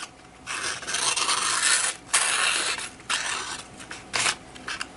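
A sharp, thin-edged CPM 10V steel knife making about six cutting strokes in quick succession, each a brief scraping hiss.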